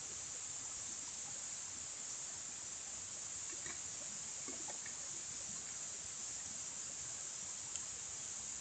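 Steady high-pitched insect chorus of crickets, with a few faint light knocks midway.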